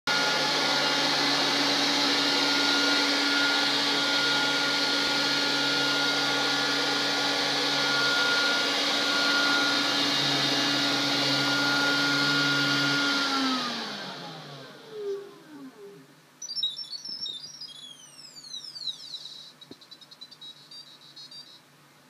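Electrolux Trilobite 2.0 robot vacuum running its suction motor with a steady whine, which winds down in pitch and fades about two-thirds of the way through as the cleaning cycle ends. After that the robot gives a series of high electronic chirps and falling beeps, then a quick run of tones.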